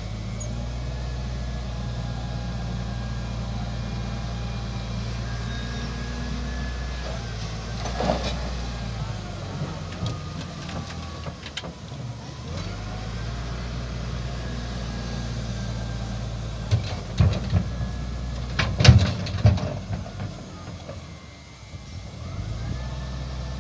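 Diesel engines of a tractor and an XCMG LW300KN wheel loader run steadily, with a higher whine that rises and falls as the loader works its bucket hydraulics. A sharp knock comes about a third of the way in, and a cluster of loud knocks and clatters about three-quarters through as the bucket tips soil into the steel tipping trailer.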